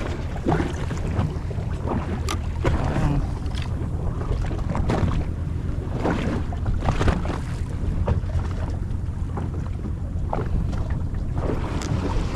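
Boat motor running steadily, with water splashing and slapping against the hull and wind buffeting the microphone.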